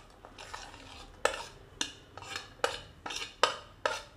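A spoon scraping against a dish in a run of short strokes, about two a second, moving chopped vegetables and corn into a bowl of curd.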